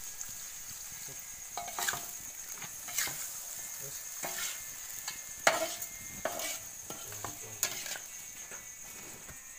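Irregular scrapes and clicks of food being stirred or turned in a pan over a fire, with a steady high chirring of insects behind.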